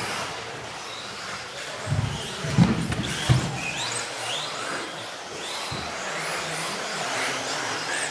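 Radio-controlled 2wd off-road buggies running on a carpet track, their electric motors whining in short rising and falling glides as they speed up and slow down. A few loud dull thumps come between about two and three and a half seconds in.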